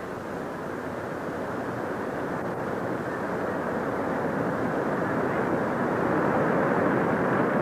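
Train running: a steady rushing rumble that grows steadily louder over several seconds, muffled by an early sound-film soundtrack.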